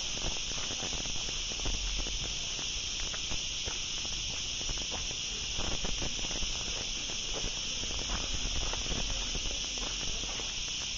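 Footsteps and rustling on rough ground: irregular soft crunches and clicks, over a steady high hiss.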